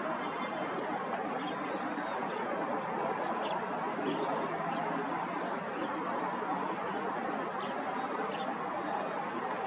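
Steady dense background noise with no change in level, with a few faint, short high chirps scattered through it.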